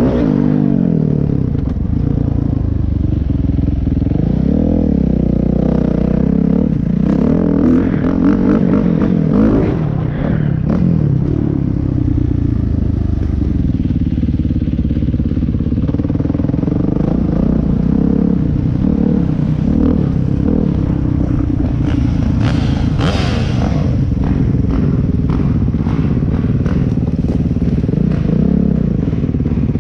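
Dirt bike engine heard from the rider's seat, its pitch rising and falling over and over as the rider works the throttle. There is a brief louder rush of noise a little over two-thirds of the way through.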